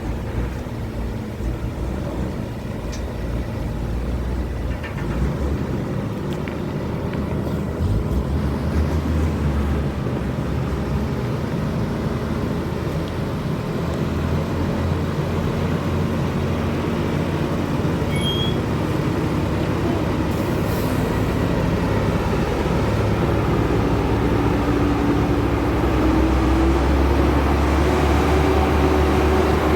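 Heavy-haulage truck's diesel engine running steadily on the road, its engine note climbing gradually near the end as it pulls harder.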